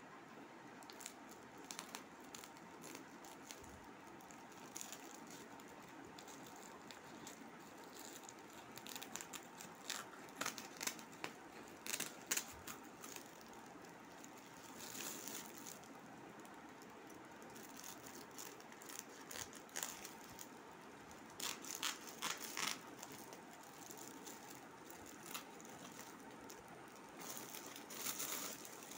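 Packaging and a lunch bag being handled: crinkling and rustling in irregular bursts with scattered small clicks and rattles over a faint steady hiss.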